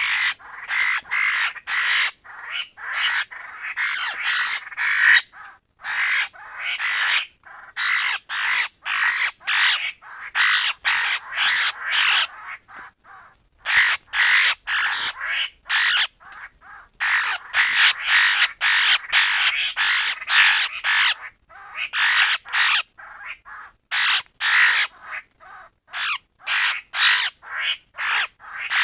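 Laughingthrush (khướu) giving its harsh, rapidly repeated 'kíu' calls in runs of several, with short pauses between runs. This is the call type that bird-trappers play on lure speakers.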